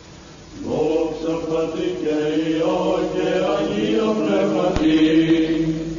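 Orthodox Byzantine-style chant: men's voices sing a slow melody over a steadily held drone note, the melody coming in just under a second in.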